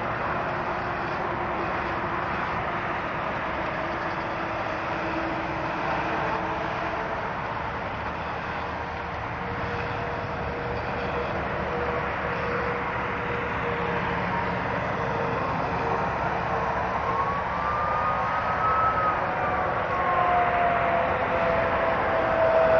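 Steady noise of interstate highway traffic, cars and tractor-trailers passing. Near the end a siren wails, rising and falling, then sliding slowly downward as an emergency vehicle approaches.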